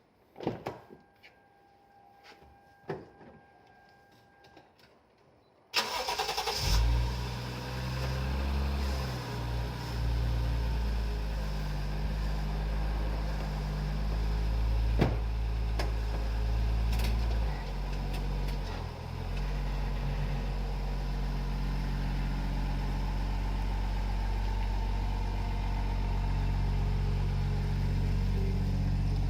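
Toyota JZX110 Verossa's straight-six engine cranked and started about six seconds in, then idling steadily. Before that, a few clicks and a steady electronic tone.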